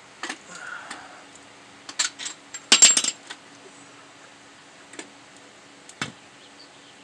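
Sharp metal clinks and clanks from under the car as a loosened starter motor and hand tools are worked against the engine and body. There are a few single knocks, and the loudest is a quick rattling cluster about three seconds in.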